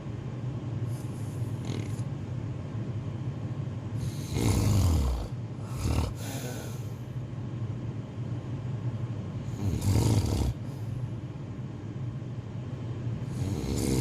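Snoring: three long, loud snores roughly every four to five seconds, with a shorter, softer one just after the first. A steady low hum runs underneath.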